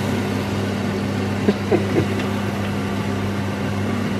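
Chicken and frozen peppers sizzling steadily in a lidded frying pan on high heat, over a low steady electrical hum.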